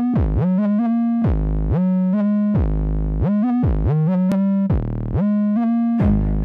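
Electronic synthesizer music, a run of keyboard notes whose bass repeatedly sweeps down deep.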